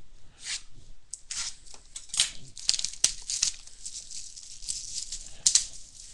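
Cardboard and plastic packaging of a retail trading-card value box being torn and crinkled open, in a run of short rips, the loudest about two to three seconds in and again near the end.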